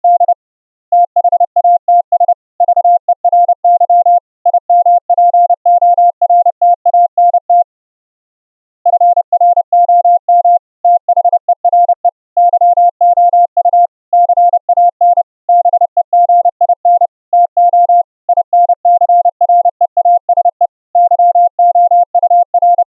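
Morse code (CW) audio tones sent over the internet through a WebRTC browser link: a single clean, steady tone keyed on and off in dots and dashes. There is a pause of about a second a third of the way in.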